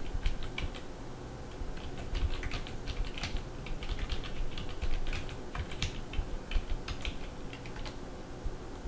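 Typing on a computer keyboard: a quick, irregular run of keystroke clicks as a long command is keyed in.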